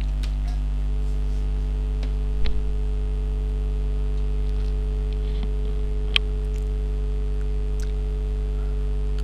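Steady electrical mains hum with a stack of overtones, picked up in the narration's recording chain, with a couple of faint clicks about two and a half and six seconds in.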